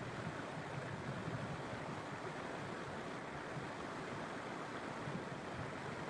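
Steady rush of a waterfall's water pouring and flowing over rocks, an even hiss with no single splashes standing out.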